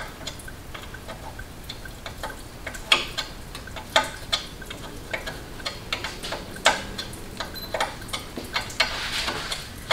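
Wrench and hand tools clicking and clinking on metal fittings as nuts are worked loose at an old engine's carburetor, in scattered sharp ticks with a few louder clanks.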